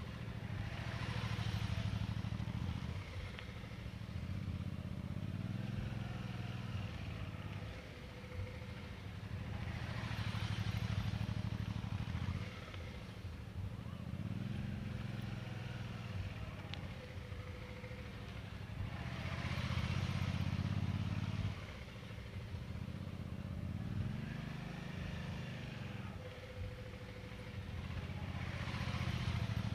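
Suzuki V-Strom motorcycle engine running at low speed through tight full-lock turns, its pitch rising and falling with the throttle. It grows louder roughly every nine seconds as the bike swings close by and fades as it circles away.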